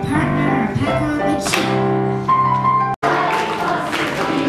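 Piano music playing as held notes, broken by a brief dropout about three seconds in.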